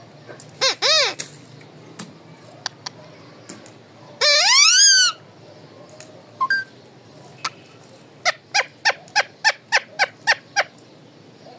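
Alexandrine parakeet calling: a short squawk, then a loud rising screech about four seconds in, then a quick run of about ten sharp notes, roughly four a second, near the end.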